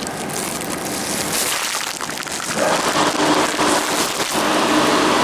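Water splashing and spraying in a shrimp washing machine on a processing line: a steady rushing hiss that grows louder about two and a half seconds in.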